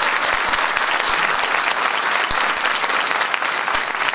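Audience applause: many hands clapping steadily and densely, with the cast on stage clapping along.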